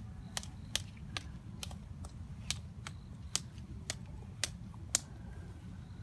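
A string of about ten sharp, dry clicks, irregularly spaced at roughly two a second and stopping about five seconds in, over a steady low rumble.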